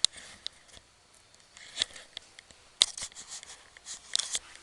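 Kittens' claws clicking and skittering on a hard floor in short, irregular bursts of sharp taps, with the busiest clusters about three seconds in and just after four seconds.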